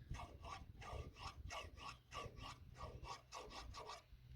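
Flat file rasping on the steel stem of a Mopar 440's intake valve in quick short strokes, stopping about four seconds in. The file is taking off a burr on the stem so the valve will slide out of its guide.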